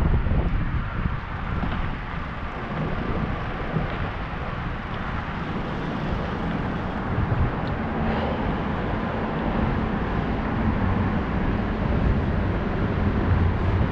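Steady wind rush and low rumble on the microphone of a camera riding on a moving bicycle, with the tyres rolling over wet pavement.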